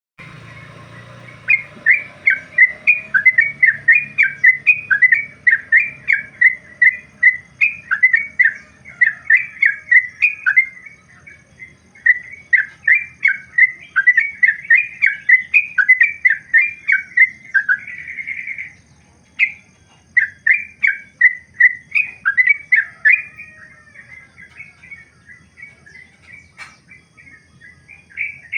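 Yellow-vented bulbul (trucukan) singing a long, fast run of loud, bubbly whistled notes, about two to three a second. There is a brief break about two-thirds through, and the notes turn fainter near the end.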